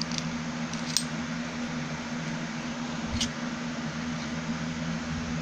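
Two light clicks of a hand tool being handled, about a second in and about three seconds in, over a steady low hum.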